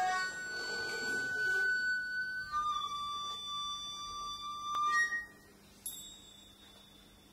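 Sparse music of long held tones: one steady tone for about two and a half seconds, then a slightly lower one for about two seconds, a brief higher note around five seconds in, after which it falls much quieter to a faint high tone.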